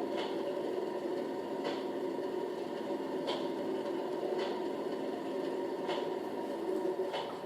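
Model diesel locomotive's DCC sound decoder playing a diesel engine ticking over at idle through the model's small speaker: a steady hum with a faint click about every second and a half.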